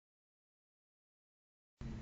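Near silence: dead digital silence, with faint steady hiss and low hum from the narration track coming in near the end.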